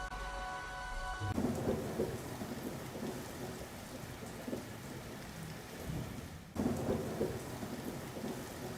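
Thunderstorm: steady heavy rain with low rumbles of thunder, coming in about a second in as a sustained musical chord cuts off. It drops out for a moment past the middle and comes straight back.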